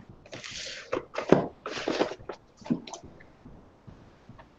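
Small cardboard boxes being picked up and moved on a workbench: two stretches of rustling, scraping noise with a few light knocks, then quieter after about three seconds.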